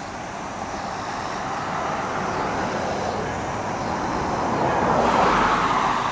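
Chevrolet box ambulance's engine running as it pulls slowly out of the station bay, the sound swelling to its loudest about five seconds in; no siren yet.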